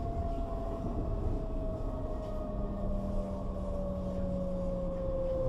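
Bombardier/Alstom class 422 S-Bahn electric multiple unit at a station platform: a steady electrical whine slowly falling in pitch over a low rumble, with a lower hum joining about two seconds in and fading near the end.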